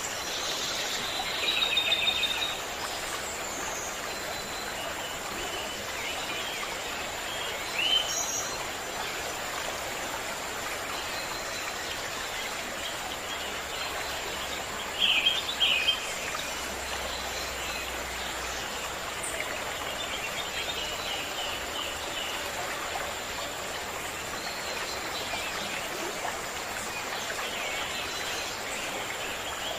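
Steady rush of a stream with small birds singing and calling over it. The louder calls come about two seconds in, around eight seconds, and as a quick pair near the middle, with a thin steady high tone running underneath.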